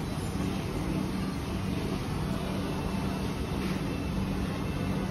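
Steady low droning hum under a constant hiss: the background din of a food court.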